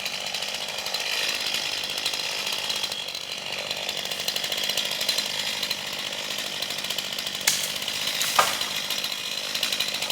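Chainsaw running steadily during tree felling, with two sharp knocks about a second apart late on.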